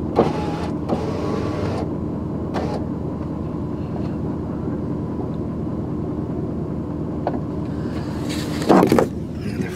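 Truck engine running steadily, with a few light knocks and a brief louder noise near the end.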